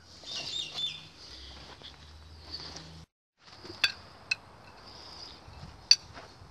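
Small birds chirping over a steady high hiss of outdoor background noise. After a brief cut to silence about three seconds in, there are three sharp clinks of cutlery on plates, the last near the end the loudest.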